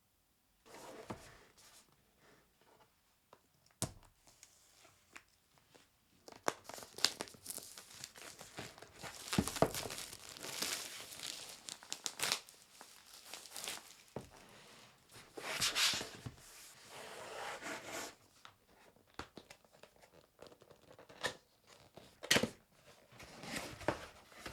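Product packaging being unwrapped: wrapping torn and crinkled in irregular bursts, with sharp knocks and clicks as the box is handled.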